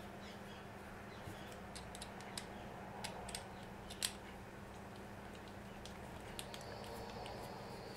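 Faint scattered clicks and ticks of a small screwdriver turning a steel M3 bolt through a freshly tapped hole in a 3D-printed plastic plate, the sharpest click about four seconds in, over a steady low hum.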